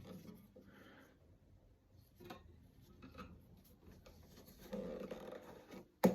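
A Dunlop elastic guitar capo being stretched and fitted onto a guitar neck: faint rubbing and small knocks of handling. The guitar strings ring faintly as they are touched, about a second before a sharp click near the end.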